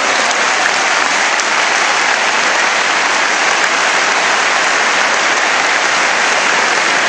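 A large arena crowd applauding, a dense, steady clapping that holds at one level without a break.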